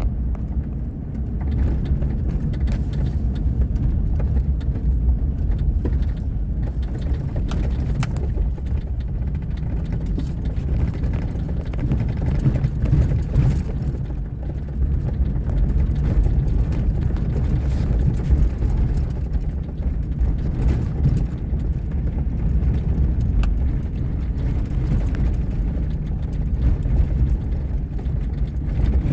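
Pickup truck driving along a road: a steady low rumble of engine and road noise.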